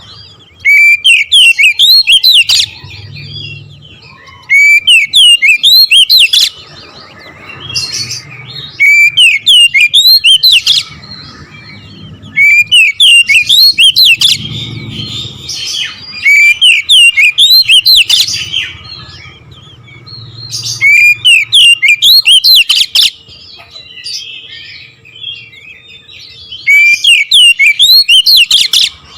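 Oriental magpie-robin (kacer) singing in loud bursts of rapid, sharp whistled notes, each burst a second or two long and repeated every few seconds: the fast, rolling 'nembak ngerol' delivery prized by bird keepers.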